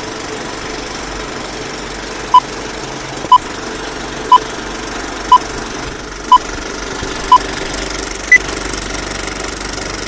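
Old film projector sound effect, a steady mechanical rattle, under countdown-leader beeps: six short beeps at one pitch about a second apart, then a single higher beep.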